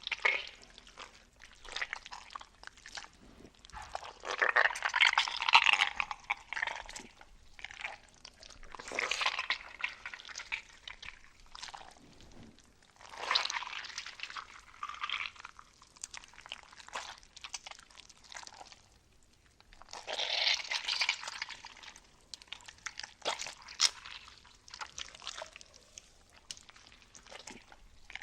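A string of separate wet cartoon gore sound effects: squishing, splattering and liquid gushing, each lasting a second or two with short gaps between, the longest and loudest about five seconds in.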